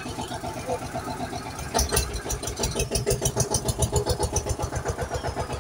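Tractor engine running with a steady rapid beat, growing louder and rougher about two seconds in.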